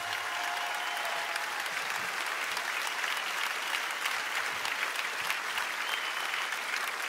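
Large audience applauding steadily, a dense patter of clapping.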